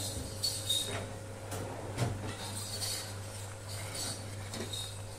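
Okra curry boiling in a pan, a fine crackle of bubbling, while a steel ladle stirs it with light scrapes and clicks against the pan, the strongest about two seconds in. A steady low hum runs underneath.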